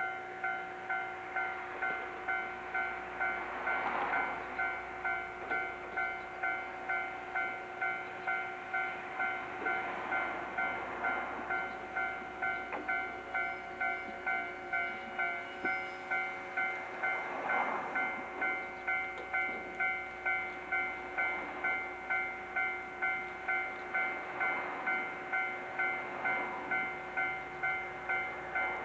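Railway level-crossing warning bell dinging evenly, about three strikes every two seconds, with a few swells of train noise underneath from a 165-series electric multiple unit standing at the platform.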